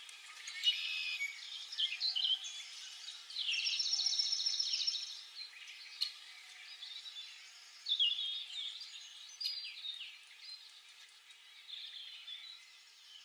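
Countryside birdsong ambience: several birds chirping and calling, with a fast high trill about three to five seconds in.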